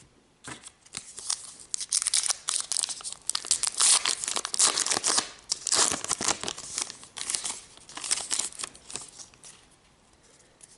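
A 2018 Topps Gypsy Queen trading-card pack wrapper being torn open and crumpled: several seconds of crackly crinkling and tearing, loudest in the middle, dying away near the end.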